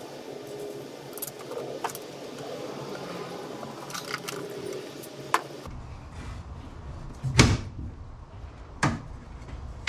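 Light clicks and rustling of wire being handled, then two loud knocks about a second and a half apart as the boat's console hatch lid is shut and pressed into place.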